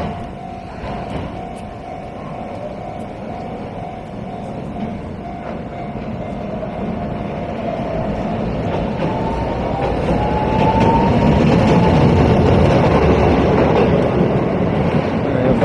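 Japanese level-crossing warning bell ringing steadily. A Toden Arakawa Line tram then draws near and passes over the crossing, its wheels and motors growing loud about ten seconds in, with a rising whine.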